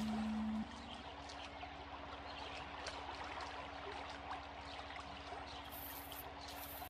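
Water trickling and splashing, with small scattered drips, over a low held musical drone. A louder held note ends under a second in, and everything cuts off at the very end.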